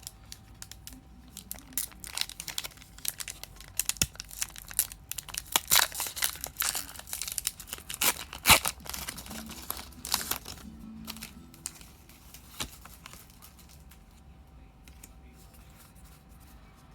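Crinkling and tearing of a Pokémon trading card booster pack's foil wrapper as the pack is opened, with irregular crackles that thin out after about twelve seconds.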